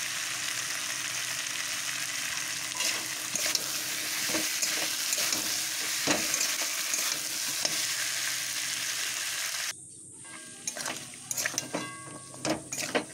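Goat meat and fried potato chunks sizzling in a metal pan while a steel spatula stirs them, scraping and clicking against the pan. About ten seconds in the sizzle cuts off suddenly, leaving only sharp spatula scrapes and clicks.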